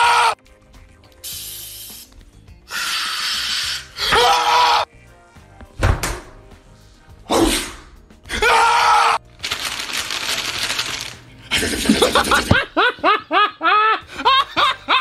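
A run of loud, harsh yells from a TikTok clip, each a second or so long with short gaps between them. Near the end, a bout of held-in laughter breaks out in quick, squeaky rising notes, about four a second.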